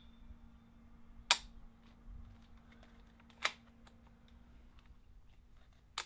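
Ruger 10/22 .22 rimfire rifle firing two sharp shots about two seconds apart.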